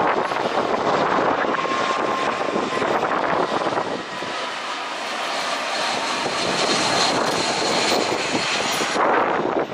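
Boeing 737 airliner's jet engines on landing approach, a loud steady rushing noise with a faint high whine that shifts in pitch.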